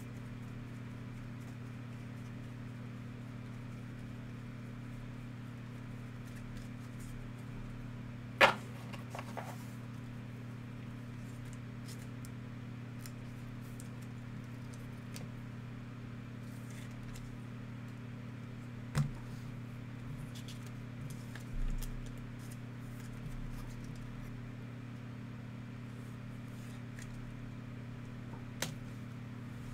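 Steady low hum with a few short, sharp clicks and taps from trading cards and plastic card holders being handled. The loudest click comes about eight seconds in, with others around twenty seconds and near the end.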